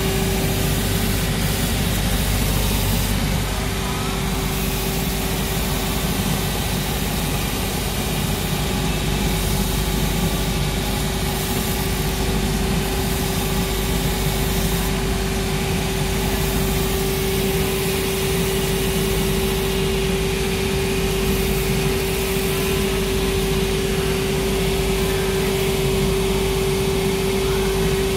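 Cobbler's finishing machine running with a steady hum, its spinning scouring wheel sanding the edge of a red Dainite rubber sole held against it.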